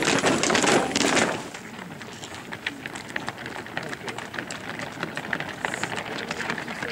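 Many feet marching on tarmac close by, a dense clatter of footsteps that cuts off about a second in, giving way to a quieter outdoor background with faint, scattered footfalls.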